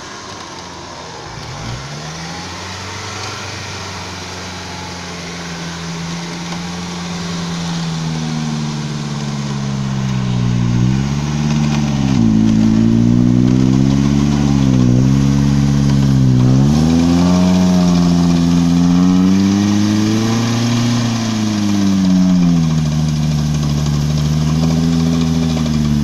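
Off-road vehicle's engine revving, its pitch climbing and dropping again several times, growing louder over the first dozen seconds.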